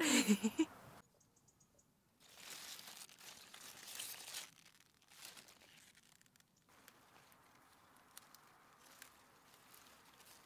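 Beetroot leaves rustling and crinkling as a hand parts and handles them. The rustling is loudest about two to four seconds in, then continues as softer rustles with small clicks.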